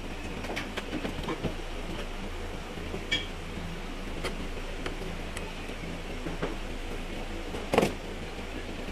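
Scattered light metallic clicks and taps from hands and tools working on a GMC Tahoe's stripped front door, with a ringing clink about three seconds in and a louder knock near the end, over a steady low hum.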